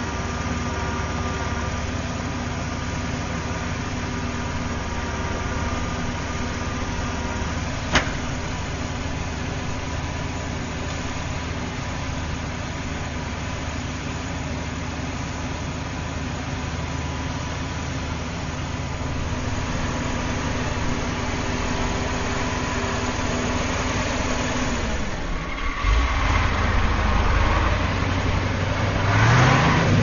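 Auto crane truck's engine idling steadily, with a single sharp click about eight seconds in. Near the end the engine speed rises, getting louder and higher in pitch before easing off.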